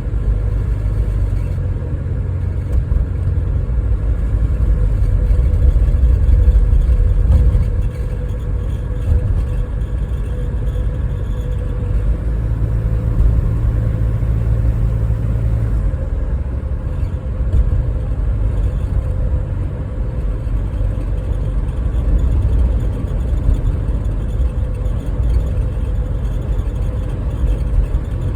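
Cabin noise of a 2018 Toyota HiAce diesel automatic van being driven: a steady low engine and road rumble that swells about six seconds in and drops back about two seconds later.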